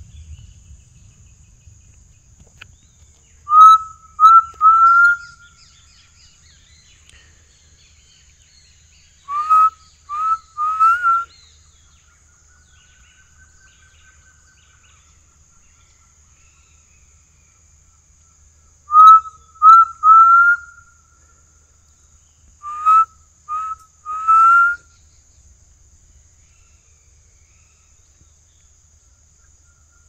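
A person whistling a bird call close to the microphone to lure a forest ground bird: four sets of three short rising whistles, each set a few seconds apart. A fainter, longer whistle comes in between, near the middle, over a steady high insect drone.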